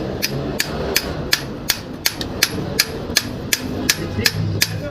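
A hammer striking metal in a steady rhythm, about three sharp, ringing blows a second, as in blacksmith work at the anvil.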